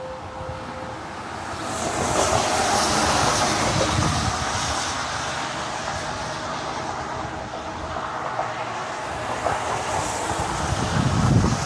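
Loud, unexplained outdoor rumbling and roaring noise, of the kind circulated as 'strange atmospheric sounds'; it swells about two seconds in, eases off, then builds again with a deeper rumble near the end.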